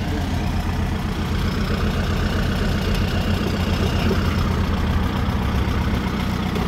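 Kubota L4708 tractor's diesel engine running steadily and loudly while it pulls a disc plough through the soil.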